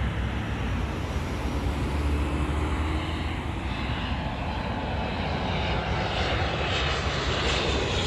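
Business jet on landing approach: its engine roar builds as it comes in low overhead. Near the end a whistling whine sweeps in pitch.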